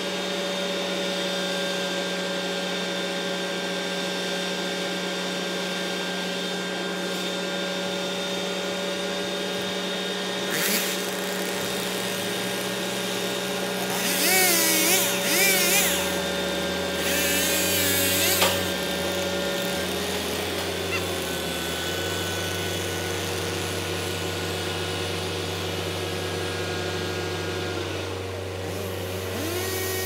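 Mobile crane's engine running steadily with a hum of several steady tones; the low pitch shifts twice as the boom is worked. Several louder, wavering bursts come in the middle.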